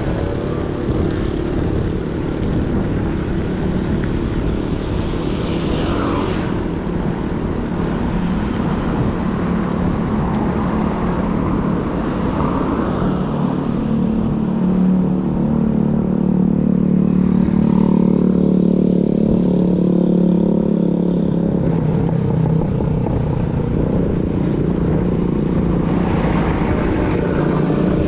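Tyres rolling on a road surface: a continuous rumble with a steady hum that grows stronger through the middle and eases near the end.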